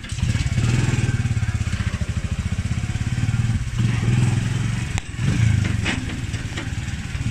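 Small motorcycle engine running as the vehicle moves off and travels slowly, a fast steady putter that rises in level at the start. It briefly drops off twice, about four and five seconds in.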